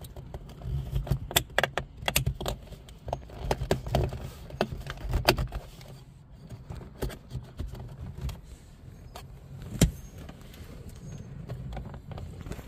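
Hard plastic clicking and rubbing as a snap-on dash-camera cover is worked into place over a rear-view mirror mount. Irregular clicks come thick through the first half, with one sharper click about ten seconds in, over a low steady rumble.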